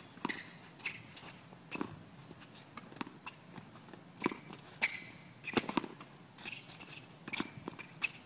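Mini-tennis rally on a hard court: tennis balls struck by racket strings and bouncing on the court, a string of sharp pops about once a second.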